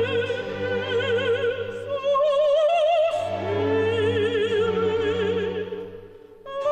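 Operatic music: a high voice with wide vibrato holds long notes over an orchestral accompaniment, fading briefly near the end before a new note comes in.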